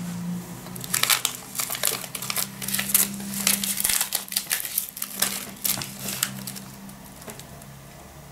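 Plastic wafer wrapper with a silvered inside crinkling as a hand picks it up and handles it. A dense run of sharp crackles starts about a second in and dies away after about six seconds.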